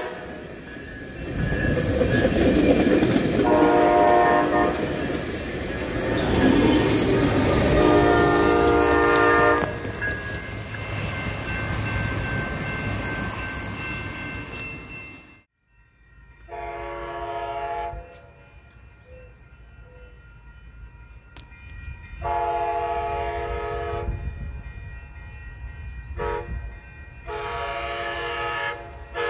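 Coaster commuter train passing close by: rumbling wheels with several horn blasts from its multi-note horn. After a cut, a train horn sounds farther off in the standard grade-crossing pattern of long, long, short, long.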